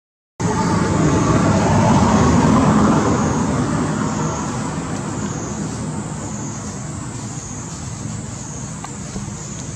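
Outdoor background noise like road traffic: a vehicle's drone swells about two seconds in and slowly fades. It comes after a brief dropout to silence at the very start.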